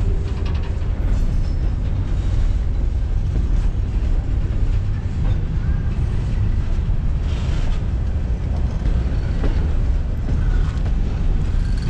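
Freight train's open-top hopper cars rolling past close by: a steady low rumble of steel wheels on the rails.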